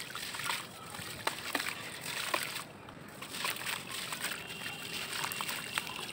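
A dry, crumbly sandy chunk being crushed and crumbled by hand, with scattered sharp cracks and gritty crunching as grains and crumbs pour and splash into a tub of water.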